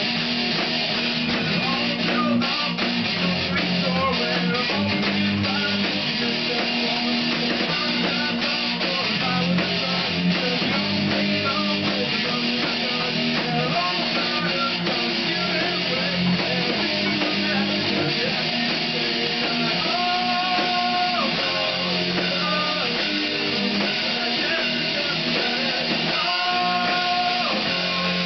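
A band rehearsing rock in a small room: an electric guitar is strummed through an amplifier over a drum kit. Near the end there are a couple of long held notes.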